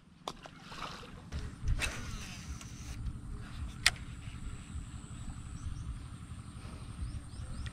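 Wind rumbling on a body-worn camera's microphone while the wearer walks through grass, with a few sharp clicks, the sharpest about four seconds in. Faint high chirps come near the end.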